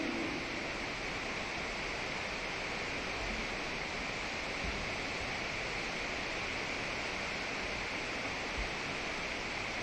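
Steady, even hiss of the recording's background noise, with a few faint low thumps.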